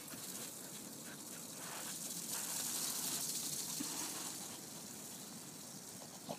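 Faint steady outdoor hiss that swells slightly in the middle, with a few soft crunches in the first couple of seconds.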